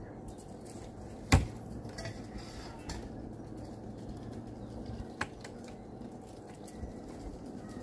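Knocks and light clatter of a wooden hutch's doors and latches being handled, with one sharp loud knock a little over a second in and another about five seconds in.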